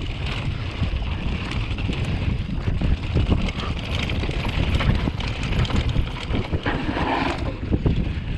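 Wind buffeting the camera microphone over the rumble and rattle of a downhill mountain bike riding fast on a dry dirt trail, with many small clicks and knocks from the tyres and bike over the ground.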